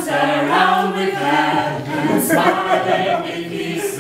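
A small group of men and women singing a song together in unison, unaccompanied.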